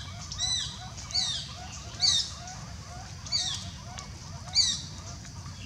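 Young macaque giving a series of high-pitched calls, about one a second, each rising then falling, over faint quick chirping in the background.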